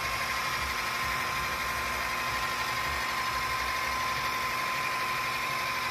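Small electric blender motor running steadily with an even high whine, blending green seasoning with curry powder.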